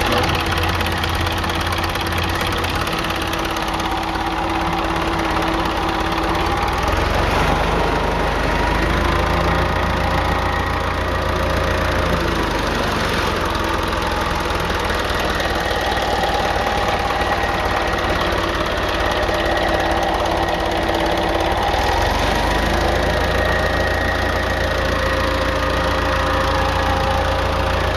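Diesel engine of a 10 kW wood-gas generator set running steadily, fuelled mostly by wood gas with diesel making up only about 20%. Its hum wavers slightly in pitch now and then.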